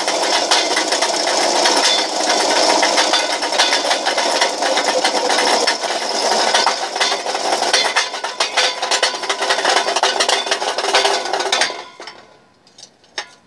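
Homemade pop can crusher running, its electric motor driving four solid wheels through a belt and a large 7-inch pulley, with a loud, steady rattling clatter while an uncrushed can is held against the wheels without feeding through. The machine is switched off about twelve seconds in and the noise stops abruptly, leaving a few faint clicks.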